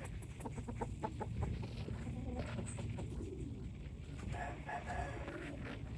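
Asil chickens clucking and calling, with short quick sounds in the first second and a drawn-out call a little over four seconds in, over a steady low rumble.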